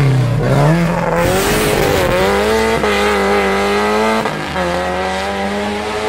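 Sports prototype race car's engine revving hard out of a hairpin. The pitch dips low through the bend, then climbs, with gear changes about three and four seconds in as it pulls away up the hill.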